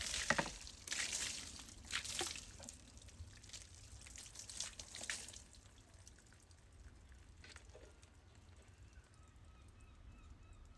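Brush scrubbing a wet, sudsy chair in a run of short, swishing strokes that stop about halfway through, leaving a quiet background.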